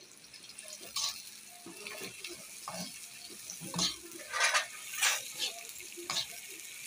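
Metal spoon stirring thick haleem in a steel pot, scraping and clinking irregularly against the pot's bottom and sides.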